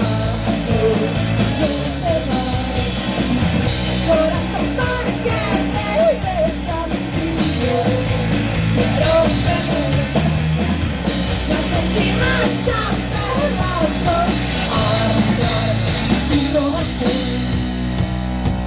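Live rock band playing with a lead vocal singing over distorted electric guitar, bass and drums.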